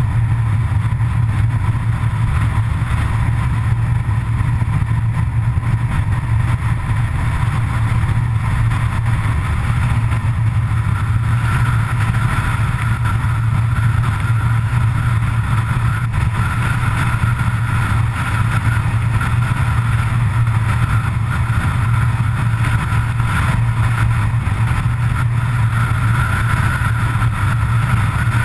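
Vehicle driving at steady speed on an open road: a constant low drone of engine and road noise, with a steady higher hum over it and no change in pace.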